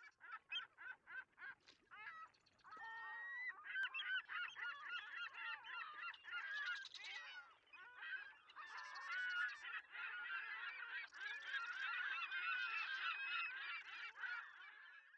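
A flock of birds calling over one another: short separate calls at about six a second for the first two seconds, then a dense, overlapping chorus of calls that cuts off at the end.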